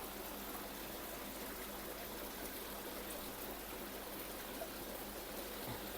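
Faint, steady rush of running water with no distinct splashes or events.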